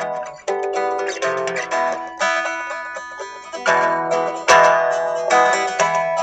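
Guitar played freely, with picked notes and chords that strike sharply and ring out as they fade. About four and a half seconds in comes a hard, sharp strike, the loudest moment.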